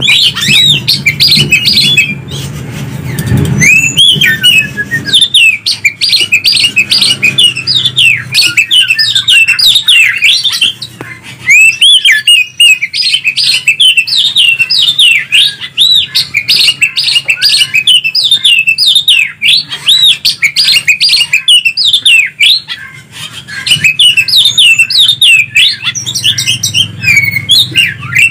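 Cucak ijo (greater green leafbird) and kacer (oriental magpie-robin) singing loud, fast strings of sweeping chirps and whistles, several notes a second with a few short pauses. A low background rumble is heard at the start and near the end.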